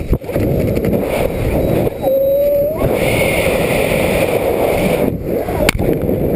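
Strong wind buffeting a skydiver's camera microphone, a dense rumbling roar. About two seconds in, a short steady tone sounds for under a second, and a sharp click comes near the end.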